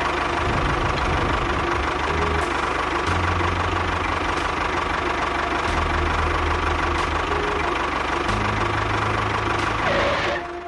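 Tractor engine running steadily, dying away about ten seconds in.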